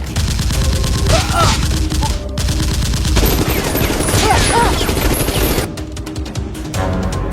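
Rapid volleys of gunfire, dense and continuous for most of the stretch, then easing off about six seconds in, laid over an action music score.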